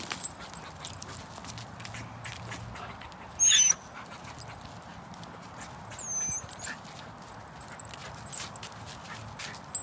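A dog gives one short, high-pitched whine about three and a half seconds in, excited by a nearby squirrel, with a fainter brief high call around six seconds.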